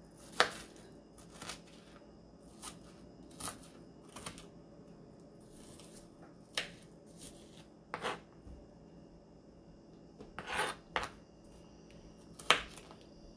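Kitchen knife chopping red onion on a plastic cutting board: about ten single chops, irregularly spaced, roughly one every second or so.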